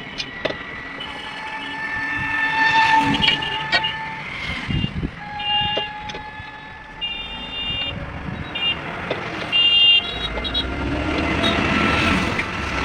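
Road traffic with vehicle horns honking: long horn blasts, then rows of short repeated beeps, over a steady traffic rumble that grows louder near the end. A few sharp knocks of metal tools come in between.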